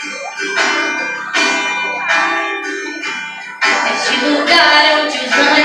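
Instrumental music between sung lines of a worship song: about four struck, bell-like chords, each ringing out and fading, the last and loudest a little past halfway.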